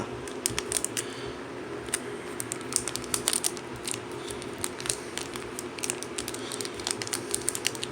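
Pokémon trading cards and their packaging being handled on a desk: an irregular run of small clicks, taps and rustles over a steady low hum.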